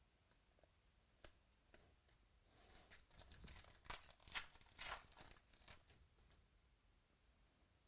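Trading-card pack wrapper being torn open and crinkled: a few light clicks, then a run of sharp crackling tears lasting about three seconds in the middle.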